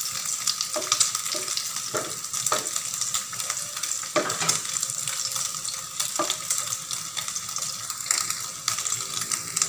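Cubes of pork fat sizzling in their own rendered oil in a stainless steel frying pan, with a wooden spatula scraping and knocking against the pan as it stirs them. The spatula strokes come every second or so at first and thin out near the end.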